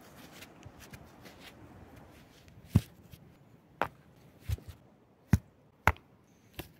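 Six sharp chopping strikes, each half a second to a second apart, after a couple of seconds of light rustling and handling.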